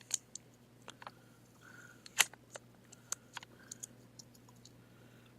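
Adhesive label being peeled off a plastic laptop battery pack, with hands handling the case: scattered small clicks and crackles, the sharpest about two seconds in.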